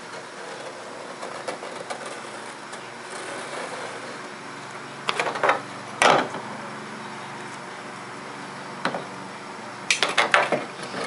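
Sheet-metal patch piece being handled and set against a steel trunk lid: a few sharp metal clicks and clanks, the loudest around the middle and a quick cluster near the end, over a steady low hum.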